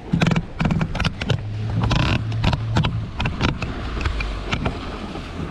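Irregular knocks and clicks of gear being handled on a fishing kayak, over a low steady hum.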